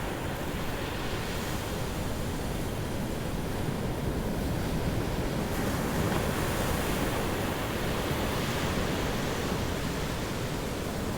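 Big ocean waves surging and breaking on a rocky shore, a steady rushing wash that swells a little louder about six seconds in.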